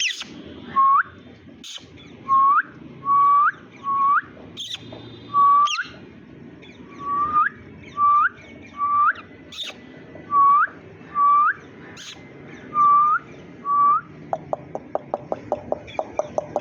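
Indian ringneck parakeet giving about a dozen clear whistled notes, each ending in a quick upward flick, with a few sharp clicks between them. Near the end it breaks into a fast run of short clicking chatter.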